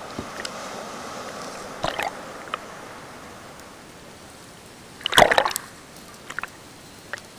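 Seawater sloshing and splashing close to the microphone, over a fading wash of surf. There are a couple of splashes about two seconds in and the loudest splash about five seconds in.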